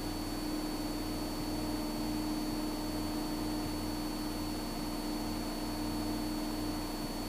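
Steady drone of a Cessna 172's piston engine and propeller at climb power, heard in the cockpit, with a faint steady high-pitched whine over it.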